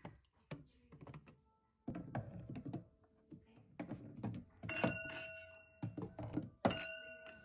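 Wine glasses being slid into a wooden ladder glass rack: a series of knocks and clinks of glass on wood and glass on glass. The two loudest clinks, about halfway through and near the end, leave the glass ringing for a second or two.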